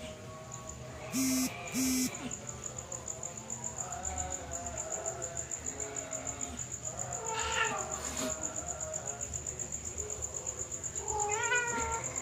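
A cat meows twice, a few seconds apart, over a steady high chirping of insects. Two short, loud blips come near the start.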